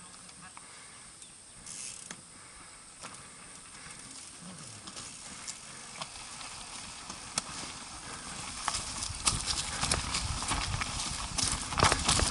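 Irregular knocks and clatter, like an ATV jolting over rough, rocky ground. They are sparse at first, then grow denser and louder from about eight seconds in, and are loudest near the end.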